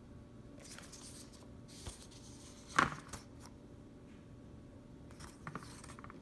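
Paper rustling as a printed instruction leaflet is lifted from the box and handled, in several short bursts. A sharp knock about three seconds in is the loudest sound, with a lighter one just after.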